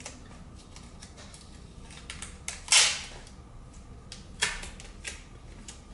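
Scattered sharp clicks and knocks of metal parts being handled and seated as a Suzuki TS185ER's carburetor is refitted by hand. The loudest is a knock a little under three seconds in, with smaller clicks around it and a few more near the end.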